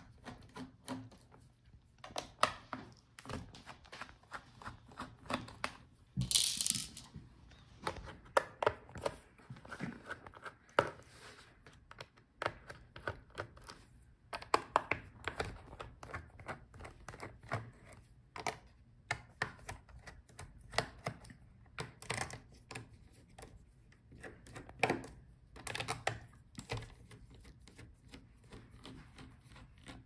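Small T5 Torx screwdriver turning out a laptop's bottom-case screws: a run of light, irregular clicks and taps as the bit works the screw heads and tool and fingers touch the case, with one louder, brief rasp about six seconds in.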